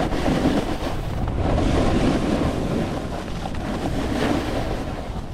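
Wind buffeting an action camera's microphone while a snowboard slides and scrapes over chopped, tracked-up snow, the rush swelling and easing every second or two with the turns.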